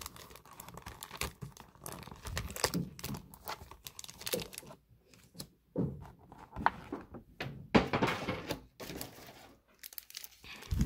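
Hands rummaging in a cardboard Pokémon card box and pulling out foil booster packs: irregular crinkling and rustling with a few light knocks.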